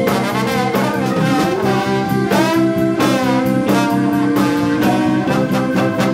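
Trombone playing a funk solo line, holding notes and sliding up into one about a second in. Bass, drums and keyboard keep a steady groove underneath.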